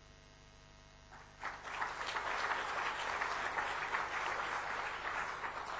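Audience applauding, starting about a second and a half in, holding steady, and dying away near the end.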